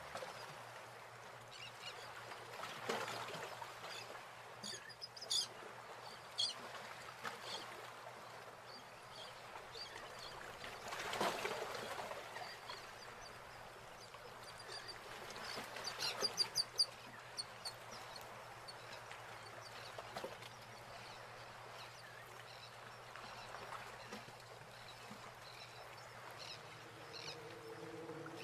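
Quiet scene with faint, soft swishes of a watercolor brush on paper. Twice there are clusters of short, high bird chirps, the busiest about 16 seconds in.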